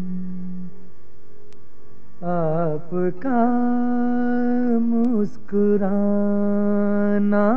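Film song music: long held melody notes with a rich, even tone that slide into and out of each pitch. There is a softer gap about a second in, followed by two long phrases.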